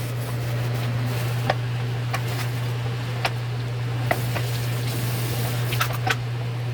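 Scattered light taps and clinks of kitchen utensils, half a dozen at uneven intervals, over a steady low hum.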